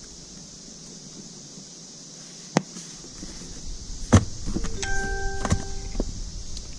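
Card binders and hard card cases being handled and set down in a vehicle's cargo area: a sharp click, then a louder knock, then several smaller clicks. A short steady tone sounds for about a second and a half over the later clicks.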